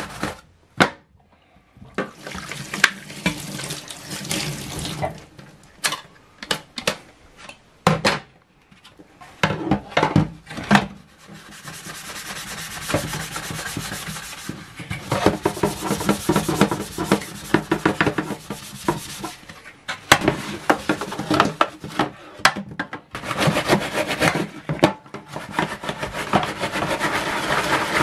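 Plastic PC case panels being scrubbed with a sponge and brush in a stainless steel sink of soapy water: rubbing, sloshing and dripping water, with scattered sharp knocks of plastic against the steel sink.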